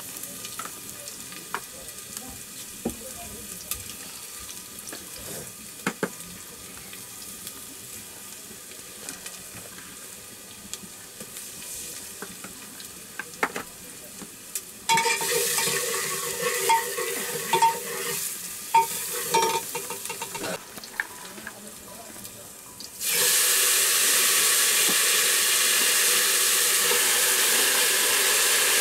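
Aluminium pressure cooker on a wood fire: about halfway through it sputters with faint whistling tones, then near the end it starts venting steam in a sudden, loud, steady hiss. Scattered small clicks from the fire and pots come before.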